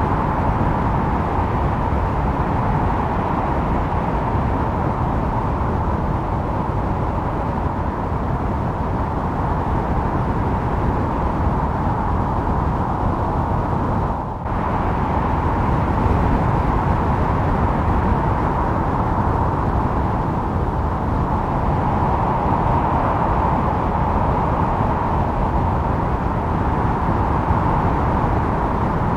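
Wind blowing steadily as a continuous rushing noise, with a brief dip about halfway through.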